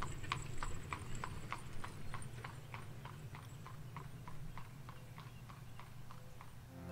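Hooves of a cart-pulling animal clip-clopping on a paved road at a walk, about four beats a second, slowly fading away.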